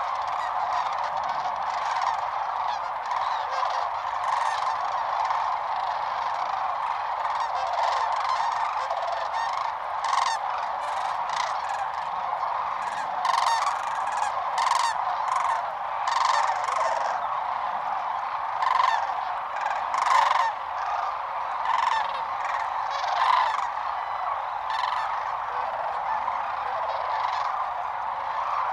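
A large flock of sandhill cranes calling together: a dense, unbroken chorus of many overlapping calls, with nearer, louder calls standing out through the middle stretch.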